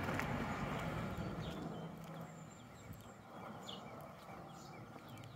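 Quiet outdoor sound: a low engine hum that fades away over the first two seconds or so, then faint footsteps on pavement.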